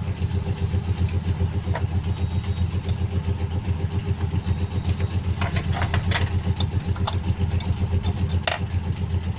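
A steady low engine hum with a fast, even throb, like a small motor idling. A few light clicks come on top of it, about two seconds in and again around five to six and eight and a half seconds in, from small tools working on the phone as its speaker mesh is picked out.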